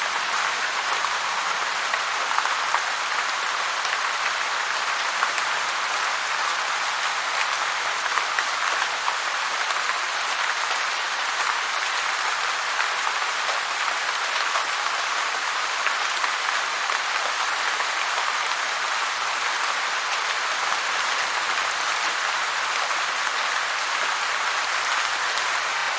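Heavy rain falling steadily, a dense even hiss of countless drops with no letup.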